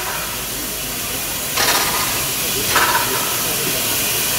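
Steam locomotive's steam-driven air pump (brake compressor) working, a steady steam hiss broken by two exhaust puffs about a second apart.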